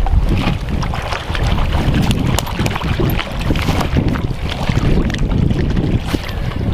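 Wind buffeting the microphone, a steady low rumble, with scattered small clicks and taps over it.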